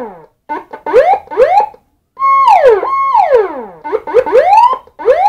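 Nine-sound electronic siren module sounding through a 10-watt horn speaker, cycling through its patterns. There are a few short blips and two quick rising chirps, then two held tones that each drop sharply in pitch, then two rising whoops near the end.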